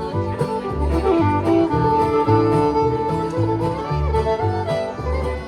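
Bluegrass band playing a fiddle tune: fiddle carrying the melody over guitar and banjo, with a bass line alternating about twice a second.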